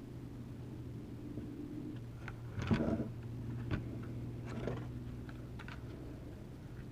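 Small clicks and taps from handling a drone and working its tiny screws with a small screwdriver, with a louder clatter about three seconds in. A steady low hum runs underneath.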